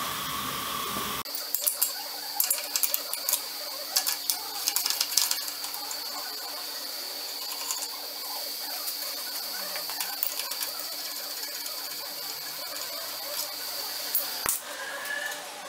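Ratchet wrench clicking in quick irregular runs with light metal tool clinks, as the exhaust Y-pipe bolts are worked loose. The clicks are densest in the first several seconds and thin out later, over a faint steady high whine.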